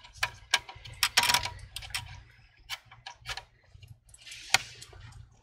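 Light, irregular clicks and taps as a laptop LCD panel is lowered and settled into the display lid, with a brief rustle near the end.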